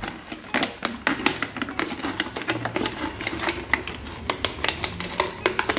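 Kitchen knife sawing through a thin clear plastic water bottle, the plastic crackling and clicking quickly and unevenly with each stroke.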